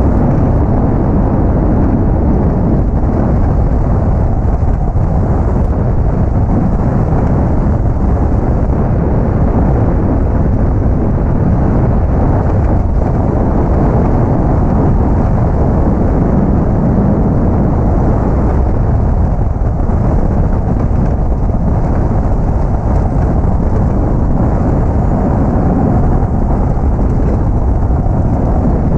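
Steady, loud rumble of road and wind noise under a GQ Nissan Patrol on leaf springs driving along a limestone road: tyre noise and air rushing past the microphone under the vehicle.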